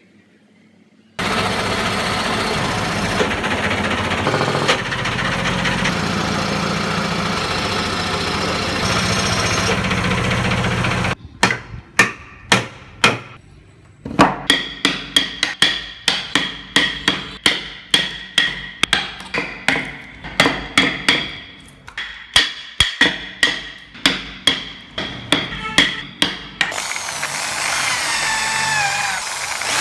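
A power tool runs steadily for about ten seconds. Then come about two hammer blows a second for some fifteen seconds, each with a short metallic ring, and near the end a power tool starts again with a wavering pitch.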